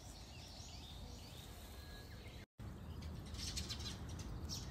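Small birds chirping and twittering, with a run of quick high chirps near the end, over a faint low background rumble. The sound drops out for a moment about halfway through.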